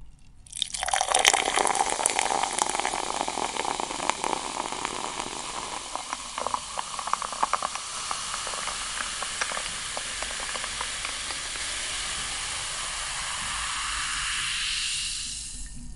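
Water pouring steadily into a vessel, with a bubbling crackle through the first half, then a smoother stream whose tone rises as the vessel fills, stopping shortly before the end.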